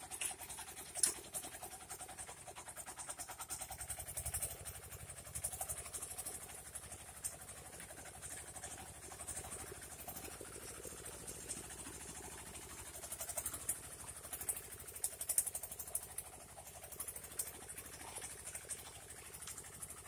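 Mini tractor engine running steadily, pulling a plough through the soil, with a low, fast, even beat.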